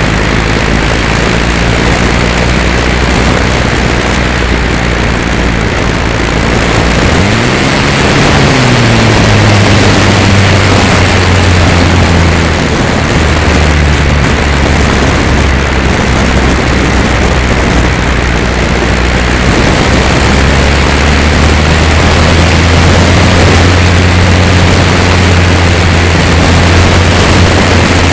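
E-flite Carbon-Z Cessna 150's electric motor and propeller running in flight, heard from a camera on the plane with heavy wind rush over the microphone. About seven seconds in the pitch rises as the throttle is opened, then holds steady.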